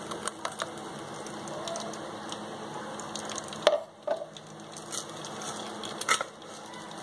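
Frothy blended lychee pulp poured from a mixer jar into a mesh strainer to strain out the juice: a steady soft fizzing, with a few clicks and knocks, the loudest a little under four seconds in and another about six seconds in.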